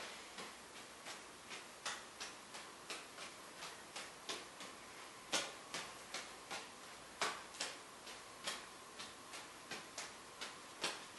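Juggling balls landing in the hands: a steady run of light slapping catches, about three a second, with a few landing harder than the rest.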